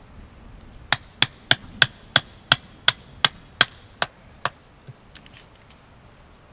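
Wood being chopped or split with a blade: a quick run of about a dozen sharp knocks, about three a second, then a few fainter ones.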